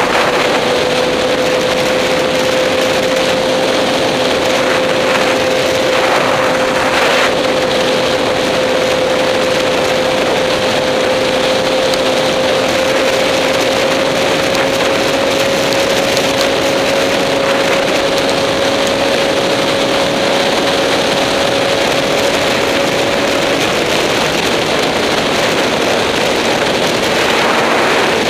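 2008 Yamaha R6's inline-four engine at steady highway cruise, its note holding a steady tone that creeps slightly higher in pitch and fades out near the end, under heavy wind rush on the helmet-mounted microphone.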